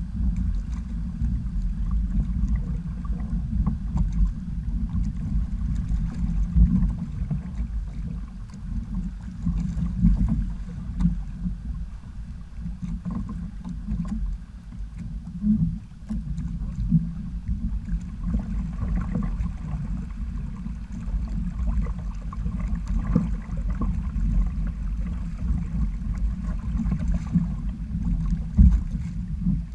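Water sloshing against the hull of a Hobie sail kayak under way, mixed with wind buffeting the microphone as a fluctuating low rumble.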